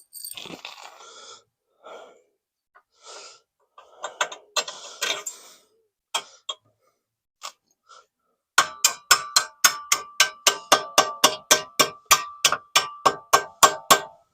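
Hammer striking steel in a steady run of about four blows a second, each with a short metallic ring, knocking the motor cradle with its tight-fitting steel bushings into place. Before that come scattered metal clinks and scrapes as the parts are fitted.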